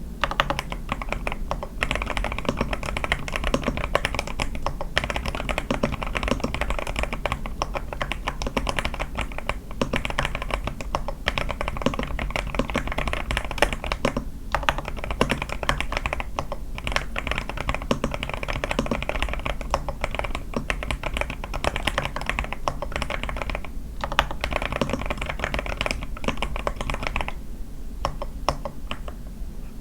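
Fast, continuous typing on an A81 mechanical keyboard with lubed Sky switches, lubed stabilizers and a tape mod: a dense run of key clacks, with a brief lull near the end.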